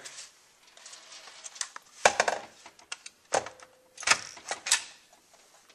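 Metal clicks and knocks as an aluminium valve body is handled and set into a Mercedes 722.6 (NAG1) transmission case, with four sharper knocks in the second half and a short ringing note after one of them.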